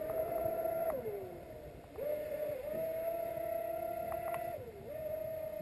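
Brushless electric motor of a Thunderbolt RC racing catamaran running at speed with a steady high whine. The whine falls away in pitch twice, about a second in and again near the end, and each time climbs back up to the same steady pitch.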